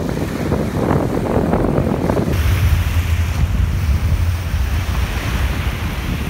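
Wind blowing across the microphone over small waves washing and breaking in the shallows. A little over two seconds in, the wind noise grows stronger, with a deep rumble and a brighter rushing hiss.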